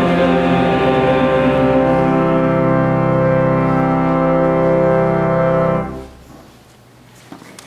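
Organ ending a hymn on a long held final chord that cuts off about six seconds in, followed by quiet church room tone.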